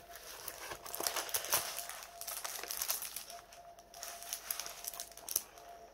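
Clear plastic sleeve around a diamond-painting canvas crinkling and rustling in irregular soft crackles as the canvas is handled and flattened out.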